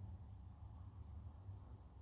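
Near silence: quiet room tone with a low, steady hum.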